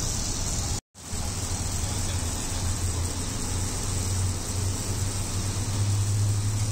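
Steady low motor-like hum under a background noise haze. The sound cuts out completely for an instant just under a second in.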